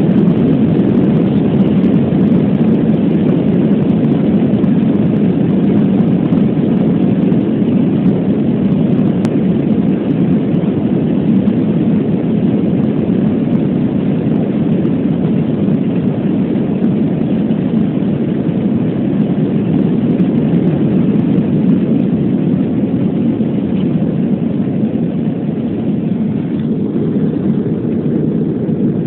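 Inside an Airbus A320-233 cabin, the IAE V2500 jet engines running at takeoff power with rumble from the runway roll, a loud steady noise.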